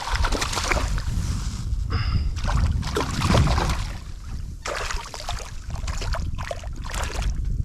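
Water splashing and sloshing at the side of a kayak in irregular bursts, with a steady low rumble of wind on the microphone.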